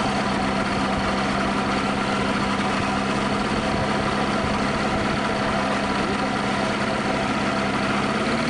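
Engine of a motorized hang glider (ultralight trike) running steadily at low revs while it rolls over grass. It is a constant low hum with overtones, over a rushing noise.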